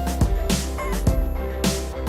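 Background music with a steady beat over held tones.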